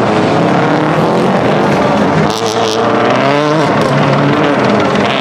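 Subaru Impreza 555 rally car's turbocharged flat-four engine revving hard, its pitch rising and falling through throttle and gear changes as it slides across loose gravel, with a short burst of crackles about two seconds in.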